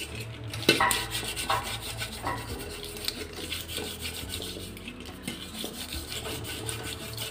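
An empty medicine blister pack scrubbed hard against the inside of a stainless steel pot, making repeated rasping, scraping strokes as it lifts off stuck-on dried milk or tea residue.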